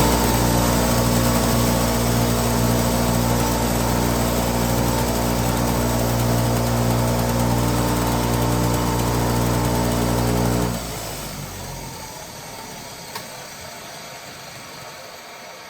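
Electric motor spinning a brass wire brush wheel, cleaning a rusty socket: a loud steady hum that is switched off about eleven seconds in and winds down over a second or so.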